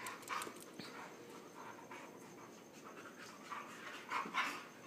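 Dogs panting faintly in short breaths, hard-breathing from play-wrestling, with a couple of louder breaths about four seconds in.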